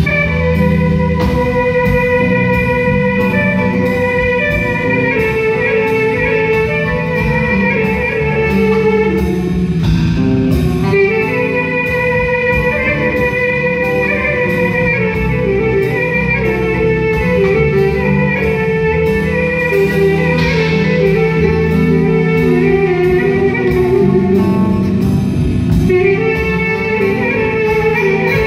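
Instrumental passage of a Turkish folk song played live: long-necked saz (bağlama) carrying the plucked melody over electric bass and a steady beat.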